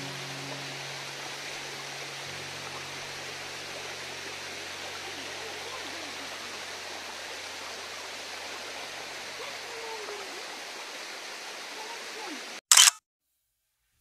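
Steady rushing of a mountain waterfall and stream. Near the end one short, loud camera-shutter click, after which the sound cuts out completely.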